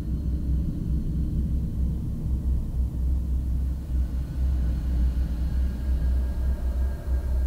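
Low, uneven rumble with no speech.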